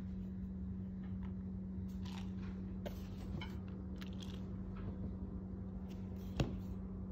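Faint handling sounds of grated coconut being scooped by hand from a plastic tub and dropped into a plastic bowl, with a few light clicks and one sharper click near the end, over a steady low hum.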